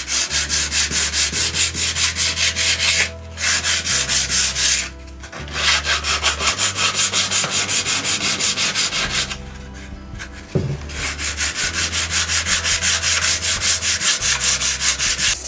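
Hand sanding with a folded sheet of sandpaper: quick back-and-forth rasping strokes, about three a second, over a grey-painted cabinet door frame. It is a light sand of the dried furniture paint. The strokes come in runs, stopping briefly three times.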